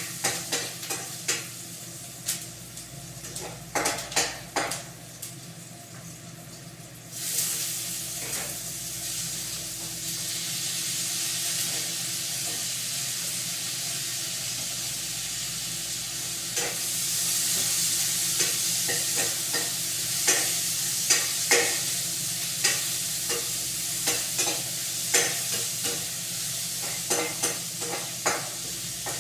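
Food frying in a pan while a utensil stirs it, striking and scraping the pan in quick taps. About seven seconds in, a loud sizzle starts suddenly and goes on, growing stronger past the halfway point, with the stirring taps continuing over it.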